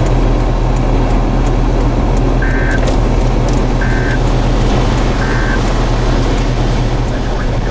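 Loud steady rumble of wind and vehicle noise heard from inside a car, with a constant low hum. Three short electronic beeps sound about a second and a half apart in the middle.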